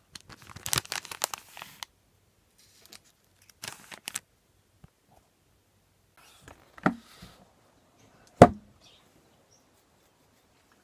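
Plastic food packaging crinkling in two short bursts, followed by two sharp knocks on a hard surface about a second and a half apart, the second the louder.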